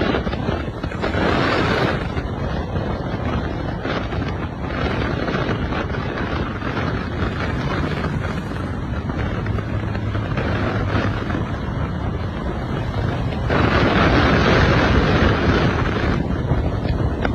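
Turbocharged car engine pulling and lifting off, the turbo fluttering, under heavy wind buffeting on the microphone. It gets louder briefly about a second in and again for a couple of seconds near the end.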